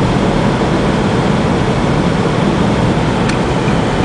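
Steady road and engine noise heard from inside a car's cabin while driving at freeway speed.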